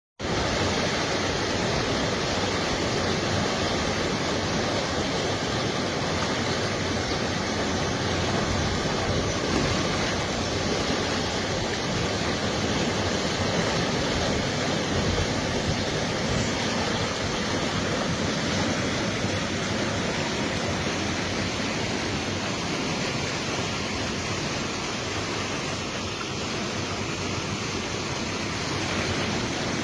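Fast-flowing river water rushing steadily, a continuous even roar of water.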